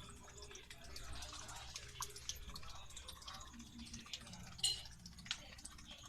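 Small water drips and light splashes, a few sharp ticks among a faint hiss.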